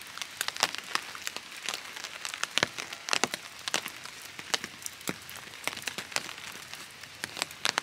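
Rain falling: irregular sharp raindrop taps, several a second, over a steady hiss.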